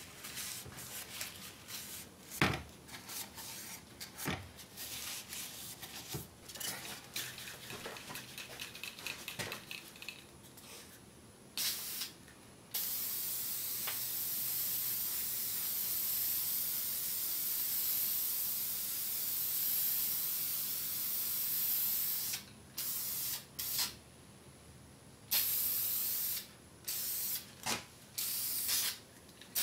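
A rag rubs and knocks over a radio front panel in short scrapes. From about eleven seconds in, an aerosol can of spray lacquer hisses: one short burst, a steady spray for about ten seconds, then a run of short bursts.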